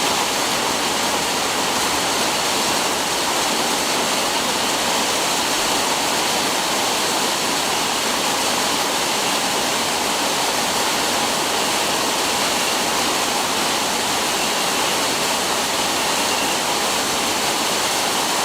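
Heavy rain falling, a steady loud hiss of water with no breaks.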